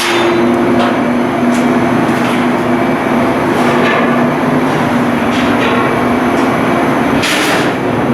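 Loud, steady machinery noise with a few sharp knocks or clanks, the loudest of them near the end.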